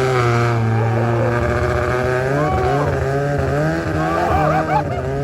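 Racing Thai longtail boat's car engine running hard near full throttle, its pitch climbing into a high steady note, then wavering up and down in the second half.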